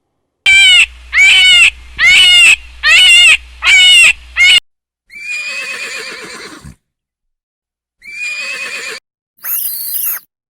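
Farm animal calls: six short, loud, evenly spaced calls in the first half, then two longer, wavering calls and a brief very high-pitched call near the end.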